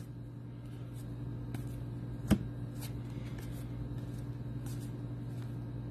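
Baseball trading cards being flipped one by one off a stack in hand: faint soft clicks, with one sharper tap a little over two seconds in, over a steady low hum.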